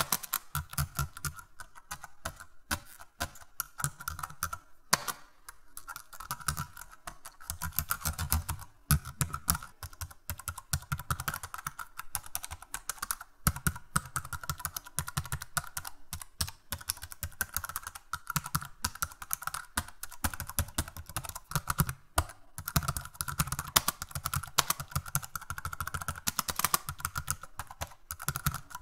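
Computer keyboard typing: rapid, irregular key clicks that go on almost without a break, stopping only briefly twice.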